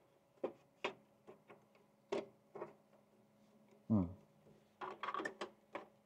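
Plastic clicks and clacks of drive trays being handled and slid out of the bays of a Synology NAS enclosure: a string of sharp clicks, a short falling slide about four seconds in, and a quick cluster of clicks near the end.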